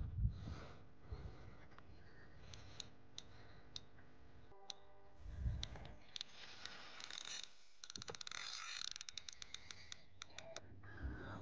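Faint clicking of a fishing reel while a carp is being played. Scattered single ticks come first, then a fast, even run of clicks lasting about a second and a half near the end, with a soft thump in the middle.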